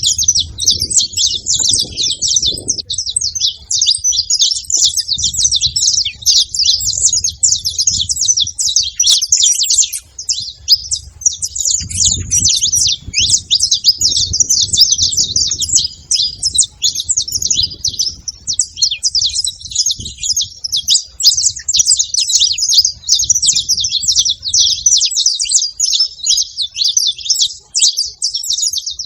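Saffron finch singing: a long, unbroken run of rapid, high chirps, with a low rumble coming and going underneath until near the end.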